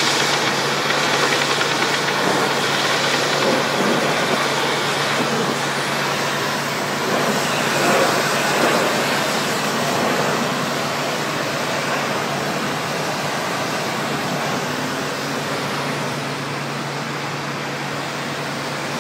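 Pressure washer running: a steady engine hum under a loud, continuous hiss of water spray.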